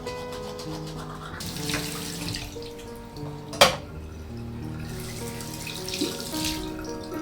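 Water running from a tap into a sink in two short spells, with a single sharp clink about halfway between them.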